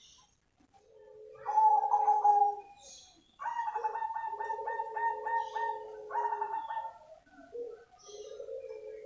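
Black cemani zebra dove (perkutut) singing its staccato cooing song: three phrases of rapidly pulsed coos on two pitches, the longest middle phrase pulsing about four times a second.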